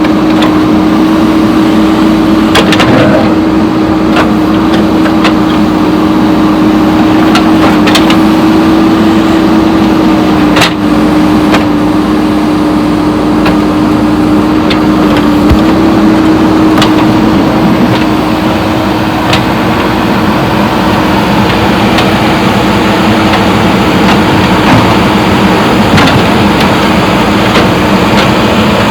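JCB backhoe loader's diesel engine running at a steady speed, with sharp knocks and cracks scattered through it as concrete slab is broken up.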